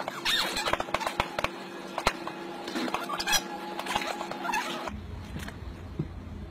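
Dogs whining in short, high squeaks, over irregular sharp clicks and knocks.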